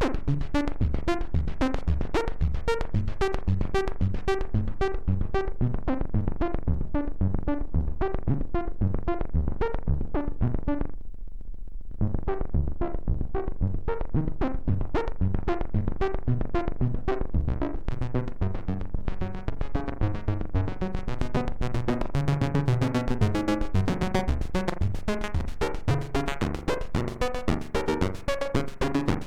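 Moog Matriarch analogue synthesizer playing a fast, even sequence of short pulsing notes. About 11 seconds in the notes stop for a second, leaving only a low held tone, then resume. From about 20 seconds in the sound turns brighter.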